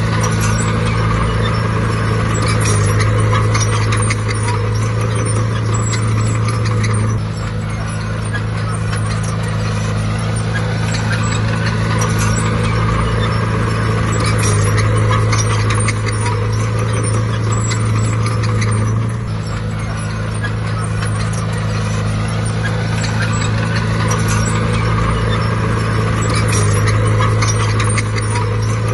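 Bulldozer's diesel engine running steadily under load, its level stepping down and back up in a cycle of roughly twelve seconds as it pushes and backs off.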